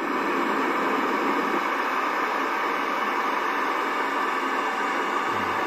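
Loud, steady static hiss from a JVC 21-inch CRT television's speaker, cutting in suddenly: the set is on with no station tuned, giving snow noise.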